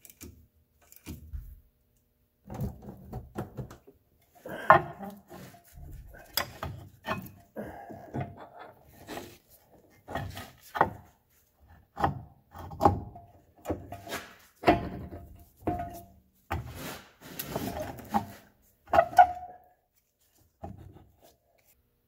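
Irregular knocks, clicks and short scrapes of metal parts being handled as the front CV axle's splined shaft is worked into the new wheel hub.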